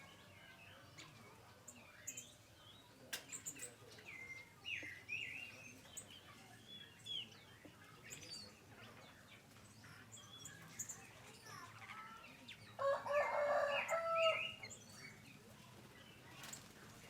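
Several aviary birds chirping and whistling in short calls, with one loud, drawn-out call of about a second and a half near the end.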